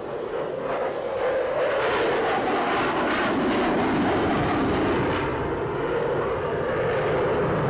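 F-22 Raptor's twin Pratt & Whitney F119 turbofans in a flying display: a loud, steady jet roar that swells in over the first second or so.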